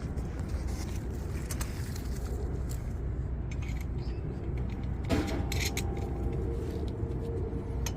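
Small metal hardware, such as nuts and bolts for a three-piece ball valve's flanges, being handled, with scattered clicks and a sharper metal clink about five seconds in that rings briefly. A steady low rumble sits underneath.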